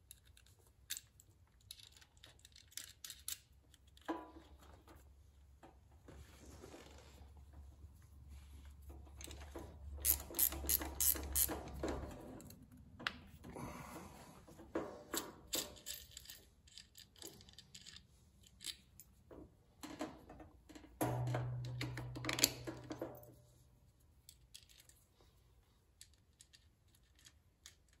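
Small clicks, taps and rattles of hand work on small metal parts: a battery cable's ring terminal and nut being fitted onto the stud of a battery kill switch. A brief low hum comes in about three quarters of the way through.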